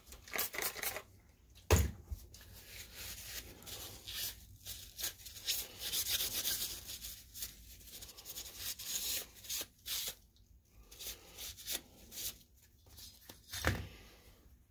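A paper wipe rubbing over the back of an aluminium heat-sink plate from a DLP projector's DMD board, in irregular scratchy strokes as the plate is wiped clean. Twice a knock sounds, the second near the end as the metal plate is set down on the bench.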